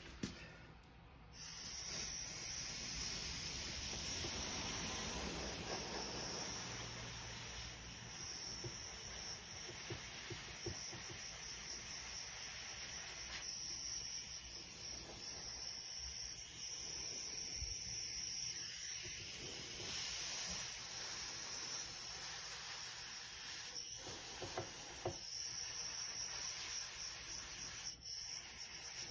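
Compressed-air blow gun hissing steadily as it is played lightly over a wet drywall-compound coating on foam patterns to pop trapped bubbles. The hiss starts about a second in, dips briefly near the end, then stops.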